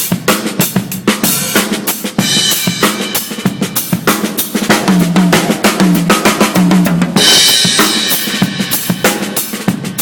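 Drum kit played in a steady groove of kick and snare strokes, with cymbal wash swelling twice, a couple of seconds in and again about seven seconds in, and a few low pitched drum hits near the middle.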